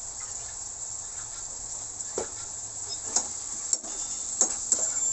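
Chicken liver and gizzard adobo simmering in a frying pan with a steady high sizzle. From about two seconds in it is stirred, with a few scrapes and knocks against the pan.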